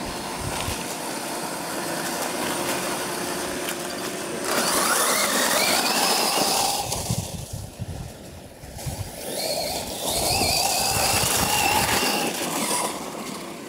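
Losi LMT RC monster truck running over grass and dry leaves on a 2S battery. Its brushless electric motor whines and rises in pitch twice as the truck accelerates, over a steady rush of tyres on the leaves, with a quieter dip between the two runs.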